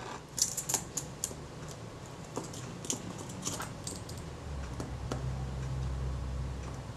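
Small irregular metallic clicks and taps of a tool and parts on an opened Synchro-Compur leaf shutter as its retard gear train is adjusted, with a low rumble from about halfway through.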